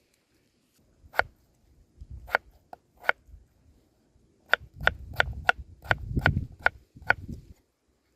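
Chopping on wood: about a dozen sharp knocks, each with a dull thud beneath, a few spaced out at first and then about three a second.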